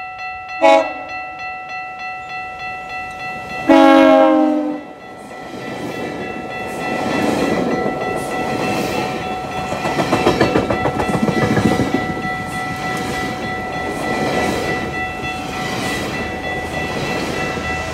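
Train horn on a GO Transit bilevel cab car: a short blast, then a longer blast of about a second, over a steady electronic ringing from the walkway crossing's warning bell. Then the double-decker coaches rush past with a rhythmic clickety-clack of wheels over the rail joints.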